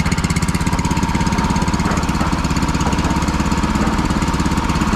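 Honda GX160 single-cylinder four-stroke engine on a petrol concrete mixer running steadily with a fast, even firing beat. It is running well after being freed from a seizure caused by rainwater getting into the cylinder.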